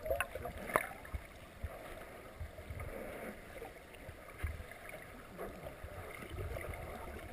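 Muffled underwater sound picked up by a submerged GoPro: a steady wash of water movement with a few sharp knocks, the loudest about a second in.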